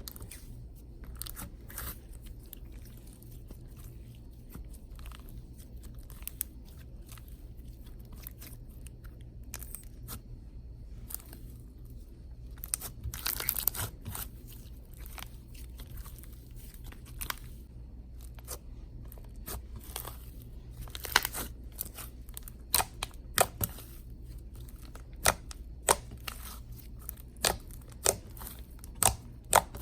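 Clay slime being squished and poked by hand, giving scattered small crackling clicks and pops that come thicker and louder in the second half.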